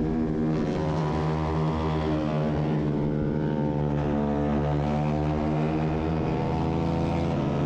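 Onboard sound of a Bajaj Pulsar 250 race motorcycle's single-cylinder engine running hard and steady at racing speed, over a rush of wind noise. The engine note changes once, about six seconds in, as with a gear change.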